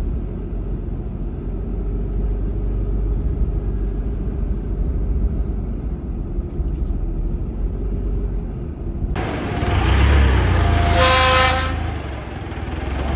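Truck engine running at low speed, a steady low rumble heard from inside the cab. About nine seconds in it gives way to a forklift's engine working louder, with a short honk-like tone near eleven seconds and another at the very end.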